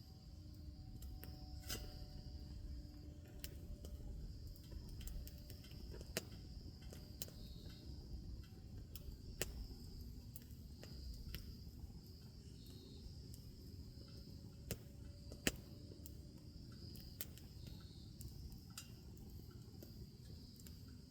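Wood fire crackling, with scattered sharp pops over a low rush; the loudest pop comes about two-thirds of the way through. Insects trill steadily in the background.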